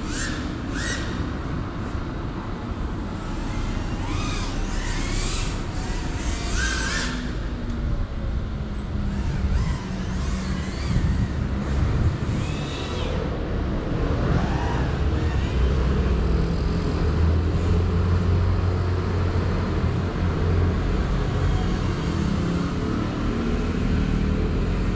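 Steady low rumble that swells a little after about ten seconds, with short whines rising and falling in pitch from a distant GEPRC CineLog35 FPV cinewhoop's motors as the throttle changes.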